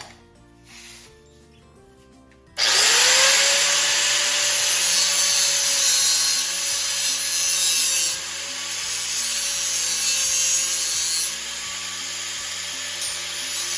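Handheld electric grinder spinning up about two and a half seconds in, its motor pitch rising as it comes to speed, then working sheet steel with a loud, steady hiss that eases slightly a couple of times.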